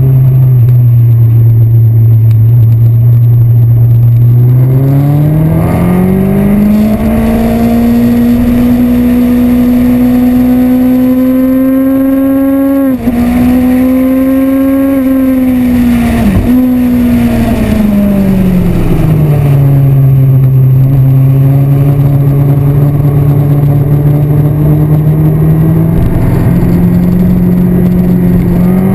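Yamaha R1 sport bike's inline-four engine under way on track, with wind noise, heard from the bike. The engine note climbs about five seconds in, holds high with two quick dips in pitch, drops back around the middle, and rises again near the end.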